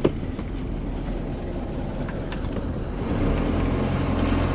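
A sailboat's auxiliary engine running steadily, with a sharp knock near the start. About three seconds in the engine note grows louder.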